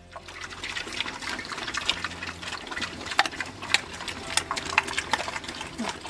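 Pigs crunching acorns and hickory nuts as they root through them on the dirt: a dense, irregular run of sharp cracks and clicks.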